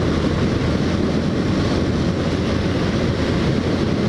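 A motorcycle cruising at a steady speed: an even rush of wind noise over the running engine, with no change in throttle.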